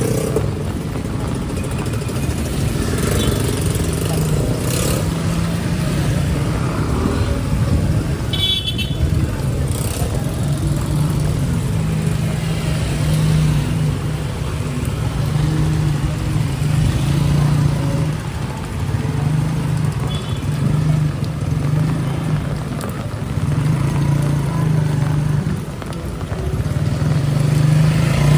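City street traffic, with motorcycles and cars passing over a steady low rumble. A brief vehicle horn toots about eight seconds in.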